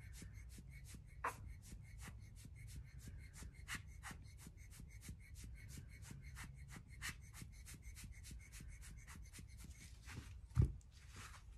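Rubber-bulb alcohol ink blower squeezed rapidly, a quiet run of short air puffs and clicks about five a second, pushing wet ink across the panel. One knock near the end.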